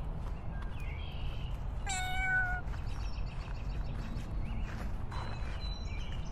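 A domestic cat meowing once about two seconds in, a single short call that dips slightly in pitch toward its end.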